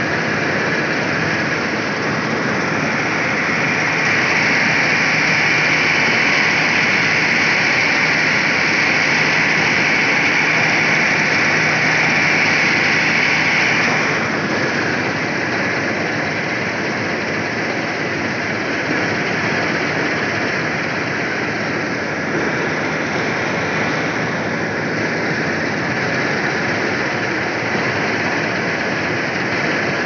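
Preet 987 combine harvester running while cutting wheat: a steady, loud mix of engine and threshing machinery noise. A bright high-pitched hiss in it eases off about halfway through.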